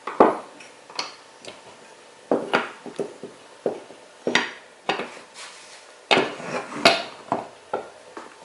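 Irregular clicks and knocks of hand tools and small metal and plastic parts as a VW O2J shifter assembly is taken apart and its clips removed. The loudest knocks come at the very start and again around seven seconds in.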